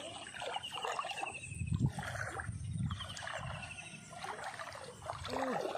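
An animal's rapid trilling call, falling slightly in pitch, heard twice, over low splashing of water.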